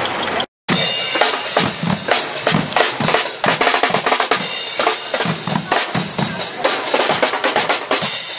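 Carnival Guggenmusik drum section of bass drums, snare drums and cymbals playing a loud, steady marching beat. It starts abruptly just after a short break about half a second in.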